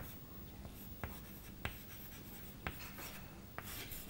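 Faint chalk writing on a blackboard: several sharp taps as the chalk strikes the board, with light scratching strokes between them and a longer scratch near the end.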